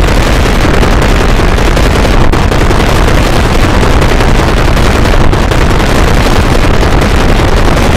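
Harsh, heavily distorted digital noise, very loud and static-like, with no clear tones or beat.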